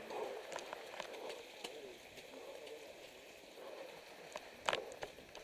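A runner's footsteps on a wet gravel path, heard from a helmet-mounted camera as faint, irregular clicks and taps over a low background hiss, with a sharper click about four and a half seconds in.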